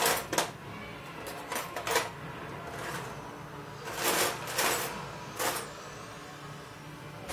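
Handling noises at the stove: a few sharp clicks and knocks in the first two seconds, then three brief rustling scrapes around the middle, over a steady low background hum.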